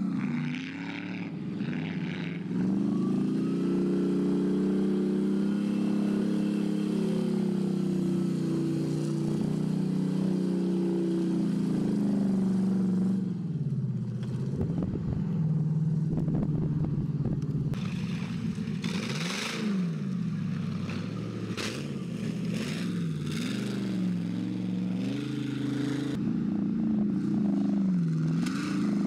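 An off-road race buggy's engine is held at high revs for several seconds, then revs up and down again and again as the throttle is worked over rough mud hills, with some brief clattering about two-thirds of the way in.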